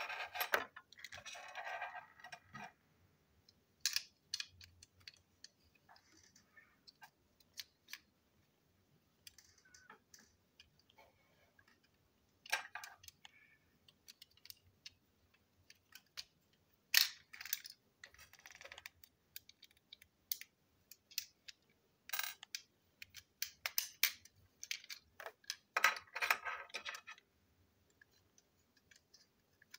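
Plastic parts of a toy train engine being handled and taken apart on a tabletop: irregular clicks, taps and short scraping rattles of small plastic pieces.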